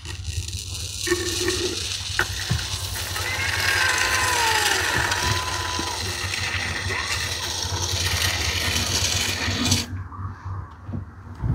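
Aerosol can of expanding foam spraying through its straw nozzle into dashboard cracks, a steady hiss that cuts off about ten seconds in.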